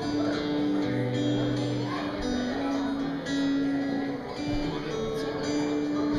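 Acoustic guitar music, strummed, carrying a slow melody of held notes.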